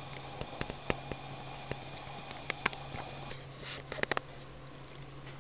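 Rice and vermicelli pilaf simmering in a covered pan on a low gas flame: faint, irregular pops and ticks as the last of the water bubbles off and is absorbed, with a steady low hum underneath.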